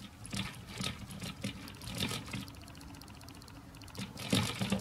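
Model railway wagons rolling slowly along the track, their small metal wheels and couplers clicking and rattling in irregular clusters, with the loudest clatter near the end.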